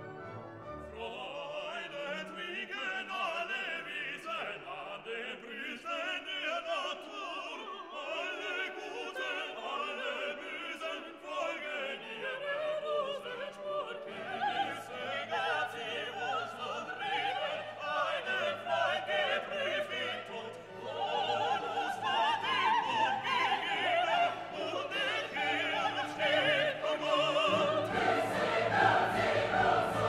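Background music: a classical orchestral piece with operatic singing, growing fuller in the second half.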